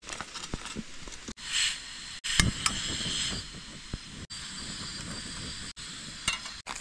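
Portable butane camping stove hissing as its gas burner burns, with one sharp click about two and a half seconds in.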